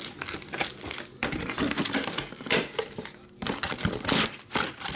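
2022 Topps Series 1 baseball card packs in silver foil wrappers crinkling and tapping as they are handled and stacked on a table, in irregular rustles and light clicks.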